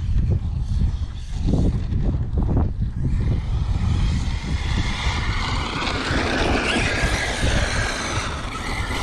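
Arrma Mojave 8S RC truck's brushless motor whining at speed from about three seconds in, its pitch rising and falling with the throttle, over a steady low rumble. A few knocks come in the first three seconds.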